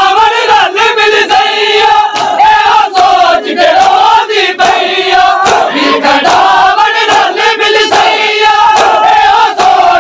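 A large crowd of men chanting a Punjabi noha together, loud and ragged, over frequent sharp slaps of chest-beating (matam).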